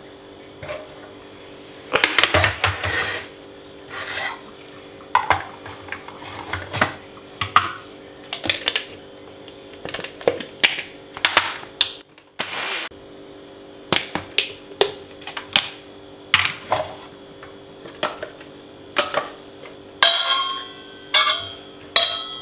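Electric mixer grinder grinding soaked rice and poha with a little water into coarse idli batter, heard as many short, irregular bursts of grinding noise.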